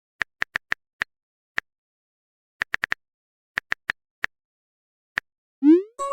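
Short sharp ticking clicks at irregular intervals, some in quick clusters of three or four, like a typing or tick sound effect. Just before the end, a quick rising tone.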